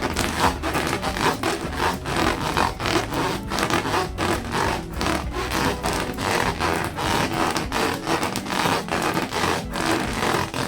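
Hands rubbing latex balloons in quick repeated strokes, several a second, with faint background music underneath.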